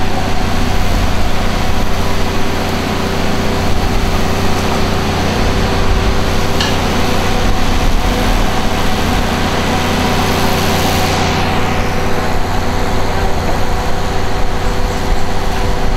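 Diesel engine of an open-sided tourist tram-bus running steadily as it drives, heard from aboard, with a constant low rumble and road and wind noise.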